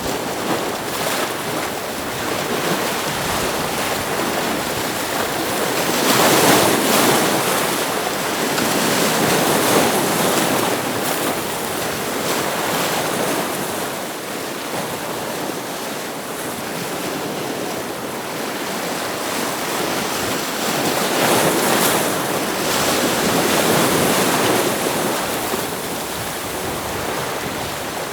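Ocean waves breaking against rocks in a continuous rushing wash, with two bigger waves swelling up, about six seconds in and again about twenty-one seconds in.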